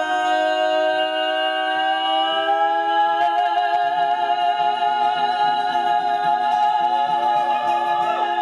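Women's voices holding one long, steady sung note over a softly played acoustic guitar: the closing note of an acoustic song.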